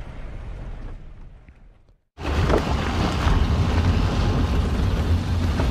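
A vehicle driving over a rough, rocky unpaved track: a steady low rumble of engine and tyres on gravel, with wind on the microphone. The sound fades out to silence about two seconds in, then comes back louder.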